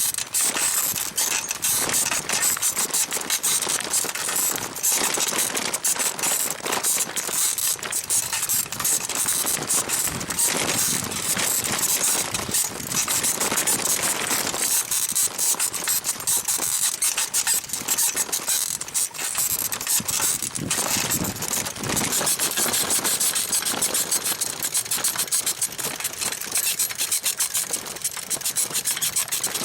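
Springs of a 1970s sprung bicycle saddle squeaking and creaking in a rapid, continuous run of squeaks as the saddle is bounced and rocked under a rider's weight.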